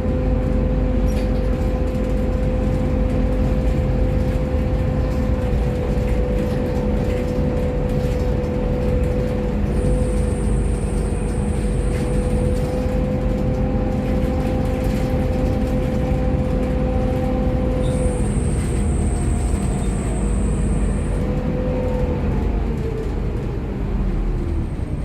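Volvo B7TL double-decker bus heard from on board while under way: the diesel engine and drivetrain run with a steady whine that falls in pitch near the end as the bus slows. A thin high-pitched tone sounds twice, each for about three seconds, around ten and eighteen seconds in.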